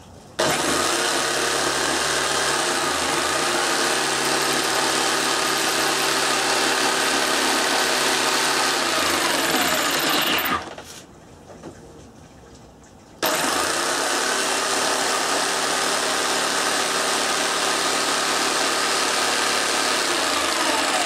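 Electric jigsaw cutting through a natural-edged yew board. It starts about half a second in and cuts steadily for about ten seconds, stops for a couple of seconds, then starts again and keeps cutting.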